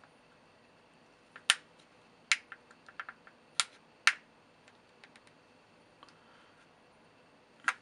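Thin aluminium soda can being creased with a knife edge, the can wall giving a string of sharp crinkling clicks and pops at uneven spacing, with fainter ticks in between and one more click near the end.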